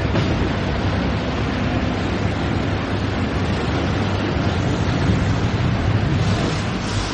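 Factory machinery running: a steady, dense mechanical din over a low hum.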